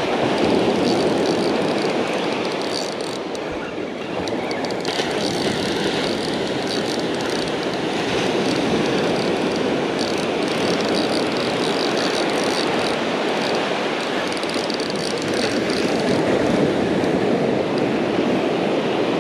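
Surf breaking and washing up the beach, with steady wind rumbling on the microphone.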